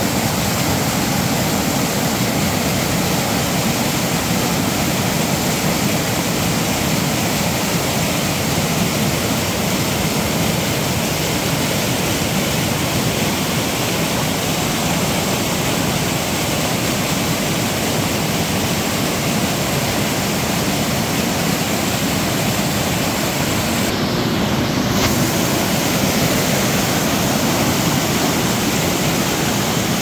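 Whitewater of a steep woodland waterfall cascading over rocks: a loud, steady rush.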